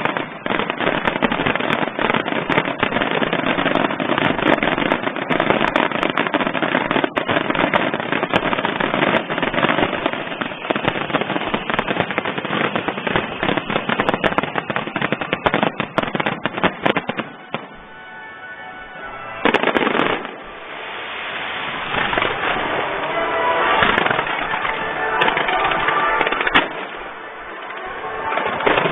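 Fireworks barrage from a starmine finale: a rapid, dense run of bursts and crackles, thinning out after about 17 seconds. A single big burst comes about 20 seconds in, followed by a quieter, noisier stretch with scattered bangs.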